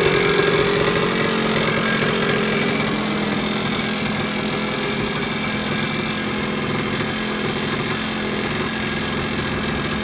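1992 Yamaha RT180's two-stroke single-cylinder engine idling steadily, a little louder in the first couple of seconds before settling.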